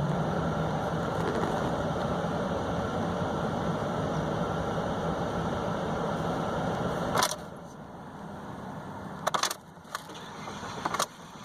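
Ford F-150 EcoBoost engine running steadily. About seven seconds in the sound drops with a sharp click, and a few more clicks follow.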